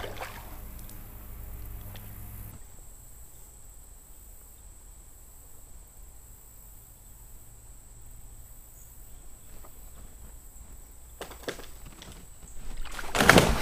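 Steady high insect drone over quiet creekside air, with a few faint cracks, then near the end a loud splash as a rotten log falls out of a tree into the creek close by.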